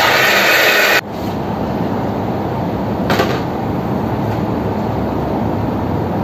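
Electric blender grinding soaked soybeans with water for soy milk, cutting off abruptly about a second in. A short knock follows about three seconds in, over a steady rushing background noise.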